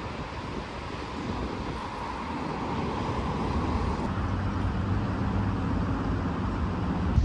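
Road traffic noise: a steady rumble of vehicles that grows gradually louder.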